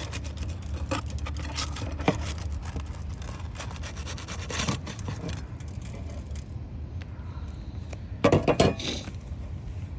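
Asphalt roof shingles being pried loose and lifted: repeated scraping, rubbing and small cracks as the stiff shingles are unsealed, with a louder flurry of scraping a little past eight seconds in. The shingles are brittle and not pliable, so they tear as they are worked loose.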